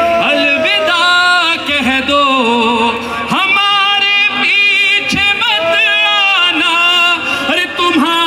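A noha, a Shia mourning chant, sung with long, wavering held notes that glide up and down in pitch.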